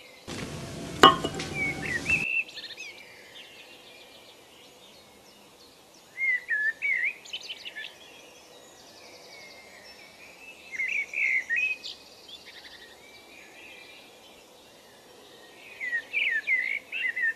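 Birds chirping in three short bursts of quick, warbling phrases over faint steady outdoor background noise. Near the start, a two-second burst of noise with a sharp click about a second in is the loudest sound.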